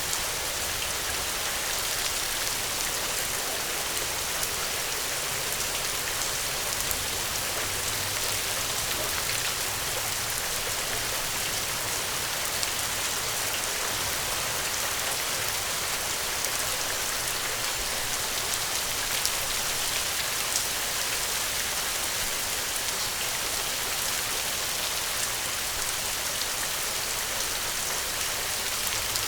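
Steady rain falling on the ground, a constant hiss with fine scattered drop patter.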